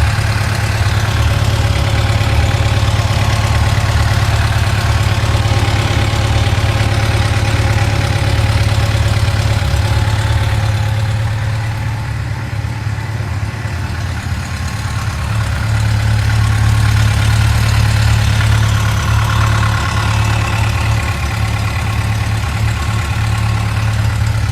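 2006 Yamaha FJR1300's inline-four engine idling steadily when warm, with a ticking noise in the idle.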